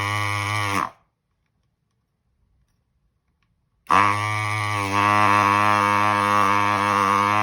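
Gaojie S-993A electric desoldering gun's built-in vacuum pump buzzing as the trigger is pulled, in two steady runs: a short one that stops about a second in, and a longer one of about four seconds starting about four seconds in. It is sucking molten solder off a component lead on a circuit board.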